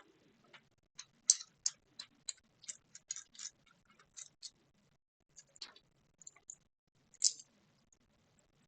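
Light metallic clicks from a screwdriver and small parts being worked on a padlock during disassembly: a fairly even run of about three clicks a second, then a few scattered ones and a sharper click near the end.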